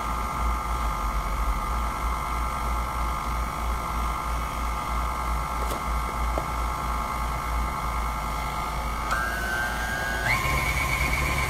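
Electric stand mixer running steadily with a whir and a low throb as its beater works powdered sugar, meringue powder and a little water into royal icing. Its pitch steps up twice near the end as the speed is raised.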